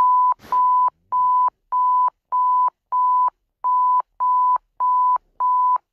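Electronic emergency-alert attention tone: one steady pitched beep repeated about ten times, evenly spaced at roughly one and a half beeps a second. The beeps announce the emergency alert that follows.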